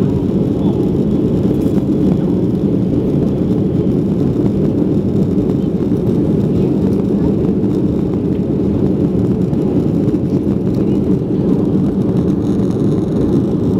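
Boeing 737-400 cabin noise during the climb after takeoff: a steady, deep drone of the CFM56 turbofan engines and rushing airflow.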